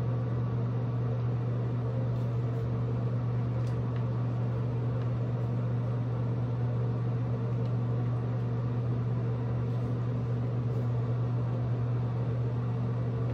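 A small motor running with a steady low hum and a faint hiss of air.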